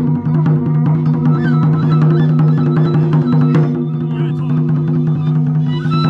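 Japanese taiko drum ensemble playing: quick, dense drum strikes over a steady held low tone, with a high melody above.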